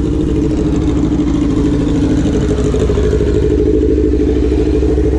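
Sport motorcycle's engine running steadily at low speed in traffic, heard from the rider's seat, with a slight pick-up in engine note a couple of seconds in.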